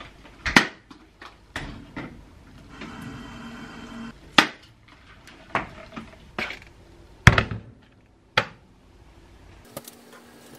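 A plastic electric kettle being handled at a kitchen sink: a series of sharp knocks and clatter, with a rush of water for about a second around three seconds in. Near the end a faint steady hum and hiss start as the kettle begins heating.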